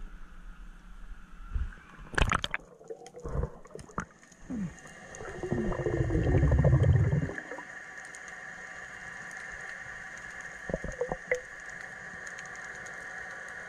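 Underwater sound heard through a camera housing. A few knocks and clicks come first, then a loud gurgling rush of water and bubbles for about two seconds. A steady hum with several held tones follows, broken by a short cluster of clicks near the end.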